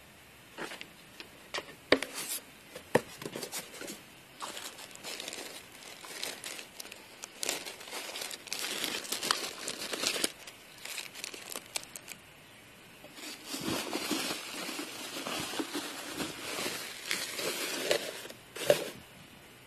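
Packaging being handled: crinkling and rustling in bouts, with a short pause about twelve seconds in. A few sharp clicks or knocks stand out, the loudest near the end.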